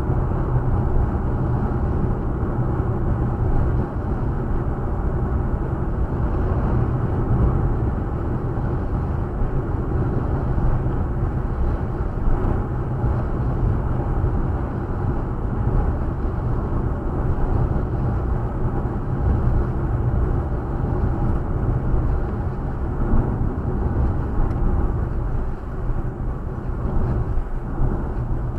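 Steady road and engine noise of a moving car heard from inside the cabin: a continuous low hum and tyre noise, with most of the sound low-pitched.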